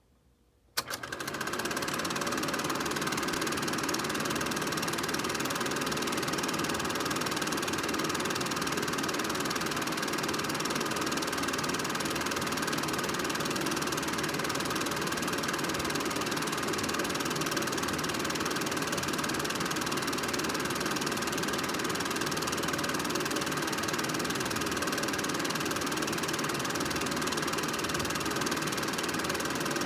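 Film projector running: a steady mechanical whir that starts suddenly with a click about a second in.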